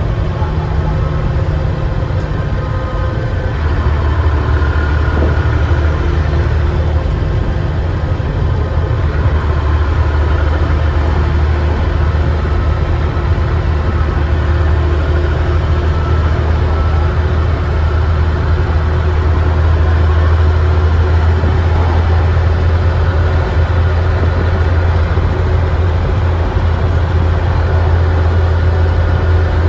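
Dennis Trident double-decker bus's diesel engine running under way, heard from on board: a steady low drone that gets louder about four seconds in.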